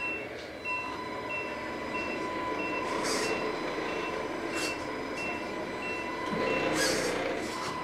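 Electronic sound module on a Tamiya Freightliner Cascadia 1/14 RC truck, playing the truck's reversing alarm: a high beep repeating nearly twice a second, which stops a little after six seconds. Underneath are a steady high whine and a low running engine sound, with a few short hisses.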